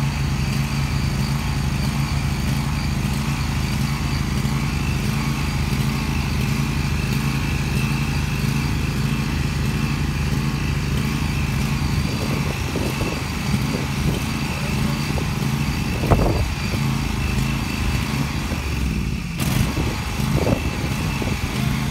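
Zero-turn riding mower's engine running steadily, with scattered knocks in the second half and a sharp thump about two-thirds of the way in, as the mower is worked free of the mud.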